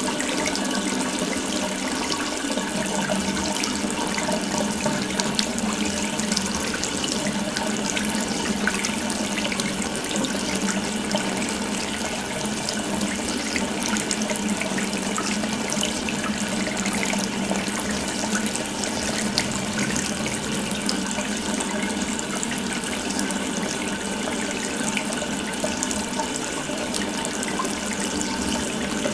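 Water running steadily from an open tap, a continuous even splashing hiss with no change in flow.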